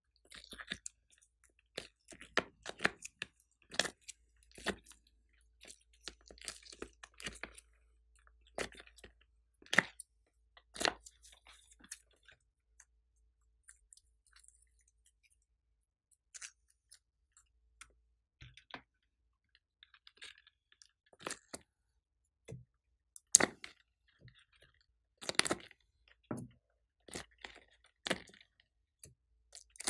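Sticky slime squished, pressed and peeled out of a silicone mold by hand: irregular wet clicks and pops, with a quieter stretch in the middle.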